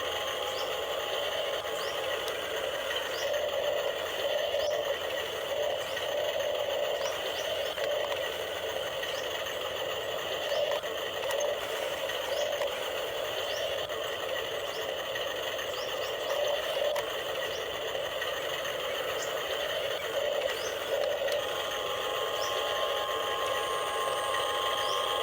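Small electric motors and gearboxes of a radio-controlled excavator and truck whining steadily, with a faint high chirp repeating about once a second; a second higher whine joins near the end.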